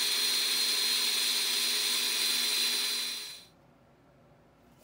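Electric drill running steadily at constant speed, driving a rotary table that turns the camera; the whirring cuts off about three and a half seconds in.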